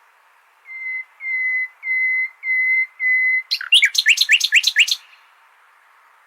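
Common nightingale singing: a phrase of five long, even whistled notes, then a quick run of about eight sharp sweeping notes.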